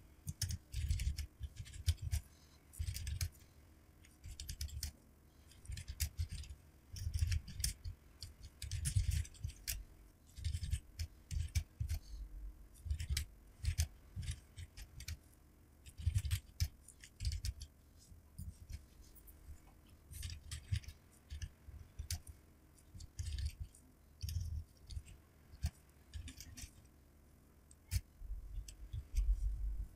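Computer keyboard typing in fast, irregular bursts of keystroke clicks, sped up.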